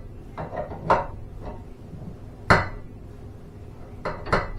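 Steel tools clinking and knocking against garage door torsion spring hardware: about five sharp, separate metal strikes, the loudest about two and a half seconds in.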